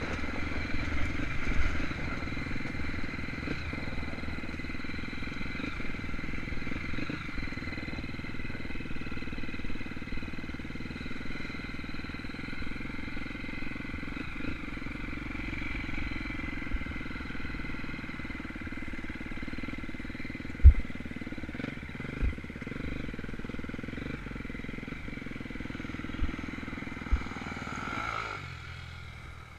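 Dirt bike engine running steadily with no big revs, with a few sharp low thumps about two-thirds of the way through; the engine sound drops away near the end.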